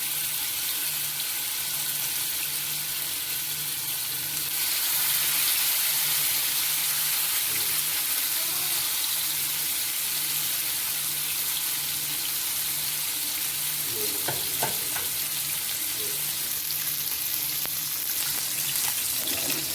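Masala-coated fish pieces shallow-frying in oil on a hot tawa: a steady sizzle that gets louder about four and a half seconds in.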